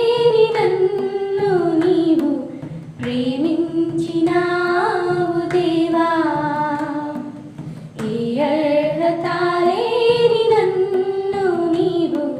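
Young women singing a Telugu Christian worship song in unison, in long drawn-out phrases with two short breaks for breath.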